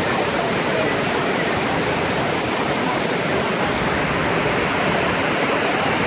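Tall waterfall pouring down a rock face into a rushing, rocky stream: a steady, even rush of falling water.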